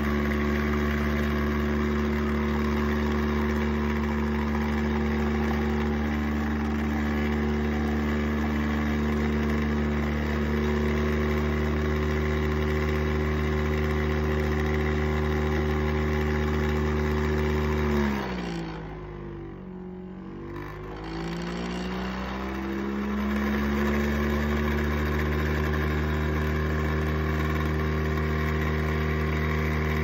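Spinn coffee machine's centrifugal brewer motor running at a steady pitch while espresso brews. About 18 seconds in it spins down with a falling pitch and goes quieter for a few seconds, then spins back up with a rising pitch and runs steadily again.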